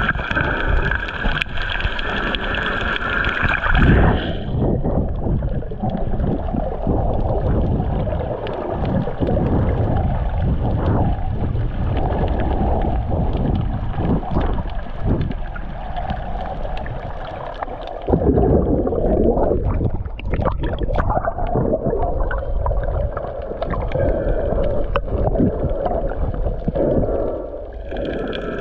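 Muffled underwater noise picked up by a camera held below the surface: water swishing and gurgling against the housing, swelling and fading irregularly. A steadier, higher hum runs with it at the start, cuts off about four seconds in and returns near the end.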